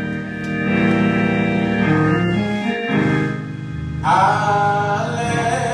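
Organ playing sustained chords to accompany a congregational worship song, with a singing voice coming in about four seconds in.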